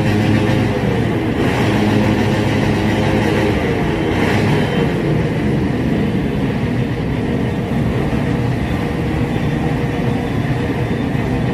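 Motor vehicle engines running in a steady drone, with two soft, muffled bursts in the first half.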